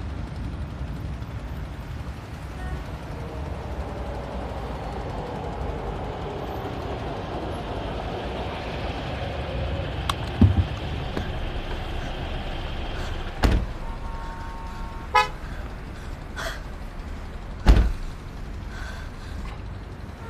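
Car driving with a steady engine and road rumble, then in the second half several sharp thumps and a brief horn toot.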